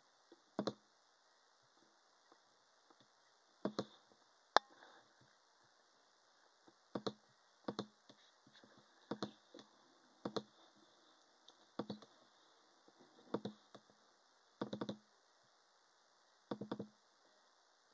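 A series of soft knocks, most of them doubled, coming irregularly about every one to two seconds over faint room tone.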